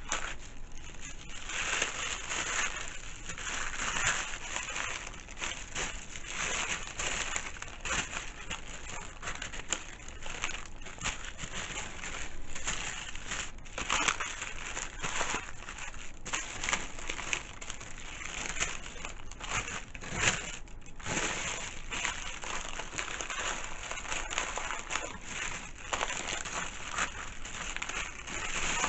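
Paper being handled: continuous rustling and crinkling with irregular sharper crackles.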